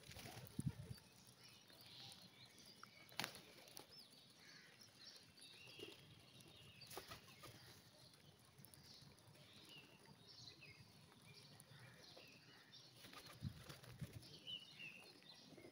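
Flock of pigeons, faint wing flapping: short fluttering bursts just after the start and again near the end as a pigeon flies in, with a few sharp clicks in between.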